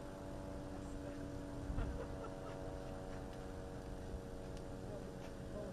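A single low, dull thud about two seconds in, typical of a distant explosion. It sits over a steady low rumble and hum made of several fixed tones.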